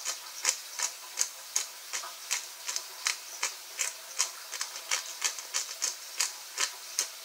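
Pepper grinder being twisted over a crockpot, giving a steady run of dry clicks, about three a second.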